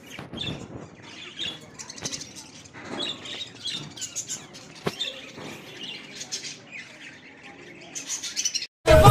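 Ringneck parakeet chicks chirping and squawking: many short, high cheeps that come and go. Loud music cuts in suddenly near the end.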